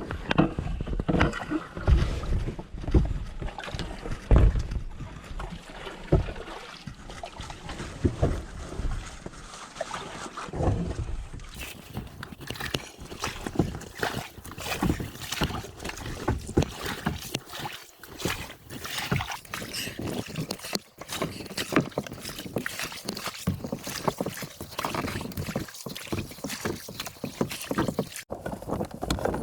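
Paddling a small boat made from a sheet of corrugated plastic board: irregular splashes of water and knocks against the hull.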